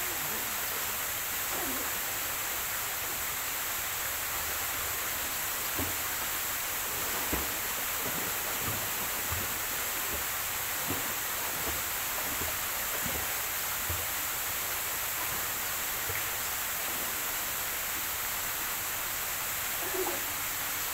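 A person swimming in a pool: soft low splashes of the strokes about once a second through the middle, over a steady hiss.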